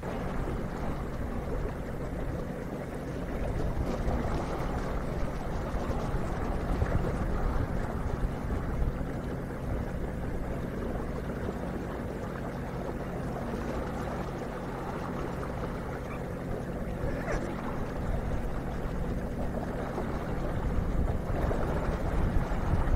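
A steady low engine hum under a continuous rush of moving water.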